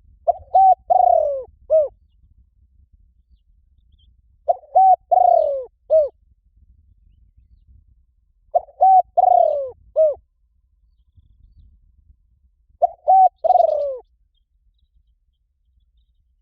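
Spotted dove cooing: four phrases about four seconds apart, each a quick run of four or five low, falling coo notes ending in a drawn-out croo.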